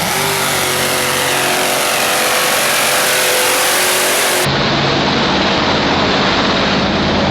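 Supercharged engine of a mega truck running hard at high revs, loud and steady. About four and a half seconds in the sound changes abruptly to a deeper, heavier rumble.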